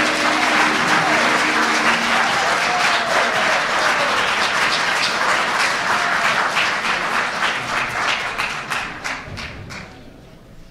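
Audience applauding, dense and steady at first, then thinning to scattered claps and dying away near the end. The last held chord of the music fades out under it in the first couple of seconds.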